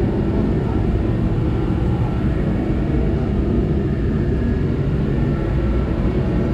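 Steady, loud low rumble of running machinery that holds constant without a break.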